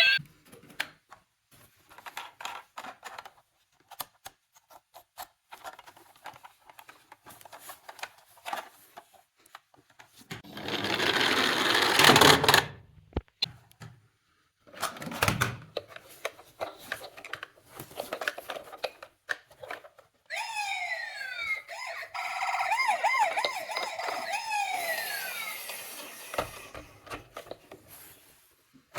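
Small plastic clicks and handling noises, with a brief rush of noise about ten seconds in; then, in the second half, a toy emergency vehicle's electronic siren sounds, several wailing and falling tones layered together, stopping shortly before the end.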